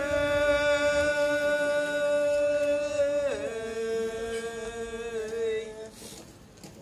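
A single voice chanting in long, drawn-out notes. It slides up into a held note, steps down to a lower held note about three seconds in, and fades away near the end.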